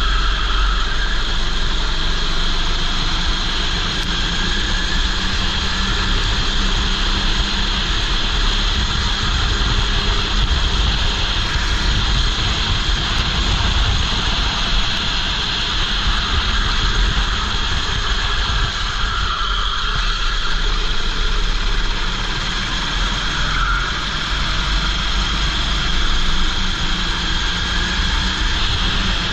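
Kart engine running at speed on track, heard from a helmet chin-mounted camera, with a steady low rumble of wind buffeting the microphone.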